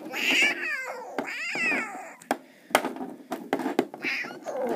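Two high, falling squeals in the first two seconds, then a quick run of sharp clicks and knocks as plastic wrestling action figures are banged against a plastic toy ring.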